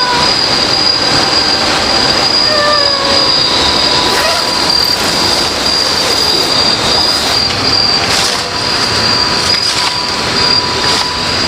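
Night forest insect chorus: a steady, shrill high-pitched drone over a dense hiss, with a couple of short falling whistled calls from another animal about two to three seconds in.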